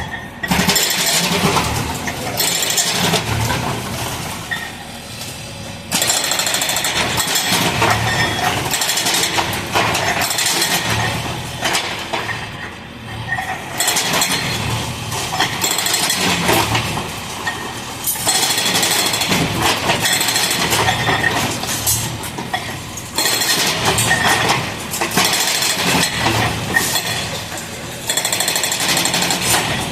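Demolition breaker hammering concrete in rapid bouts of several seconds, with short pauses between them.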